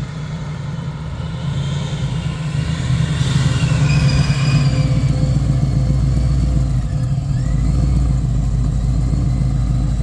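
Supercharged 427 cubic-inch LS V8 running, its rumble building over the first few seconds and then holding steady, with a faint high whine about four seconds in.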